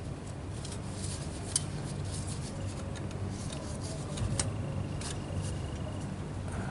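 A few light, sharp clicks from hand tools and parts being handled during motorcycle work, over a steady low hum.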